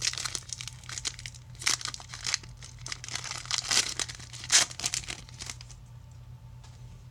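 Plastic wrapper of a trading card pack being torn open and crinkled, a dense crackling for about five and a half seconds with the sharpest crackle near the end, then stopping.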